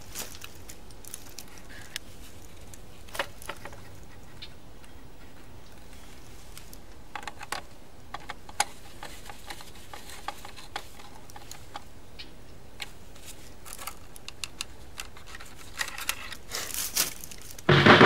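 Scattered light clicks and taps of wire ends and a hand tool being worked at an irrigation controller's plastic terminal strip, growing busier near the end.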